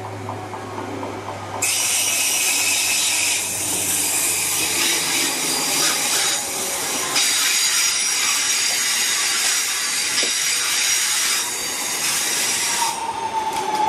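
Class 323 electric multiple unit arriving alongside the platform. About a second and a half in, a loud high hiss with steady squealing tones starts from its wheels on the curve and runs until just before the end, when it drops away and a falling whine is left as the train slows for its stop.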